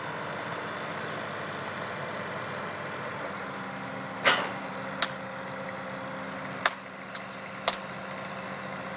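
Digger engine running steadily. A loud crack comes about four seconds in, followed by three shorter, sharp cracks.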